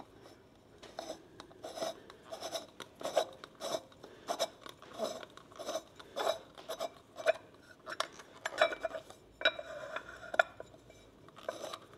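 Hand tools being worked on the car: a run of short, raspy scraping strokes, irregular, about one or two a second.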